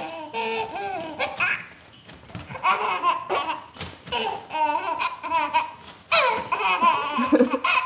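A baby laughing in several bursts of high-pitched giggles.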